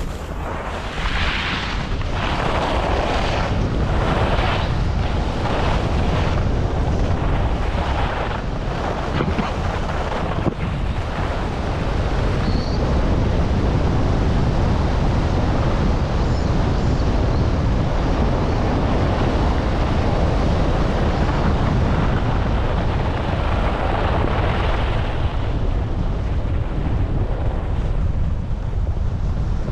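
Wind buffeting a GoPro HERO11's microphone on a fast ski descent, a steady low rush at up to about 60 km/h. In the first ten seconds or so, skis scrape on packed snow in surges about once a second as the skier turns.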